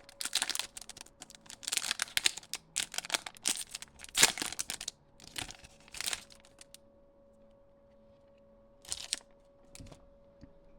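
Foil booster pack wrapper crinkling and being torn open, a run of sharp crackling rustles over the first six seconds, the loudest a little after four seconds in. Then it is mostly quiet, with two brief rustles near the end.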